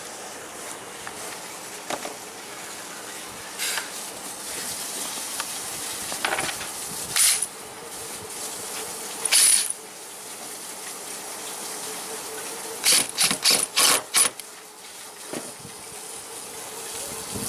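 Short, scratchy rasping strokes from the boat's new bimini and dodger canvas being fastened, with a quick run of about five strokes near the end.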